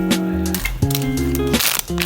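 Background music: a tune of changing notes over a steady beat.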